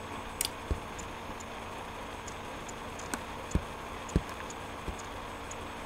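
A few soft low thumps, four in all, and two sharp clicks, one near the start and one about three seconds in, over a steady background hiss, with faint high ticks scattered throughout.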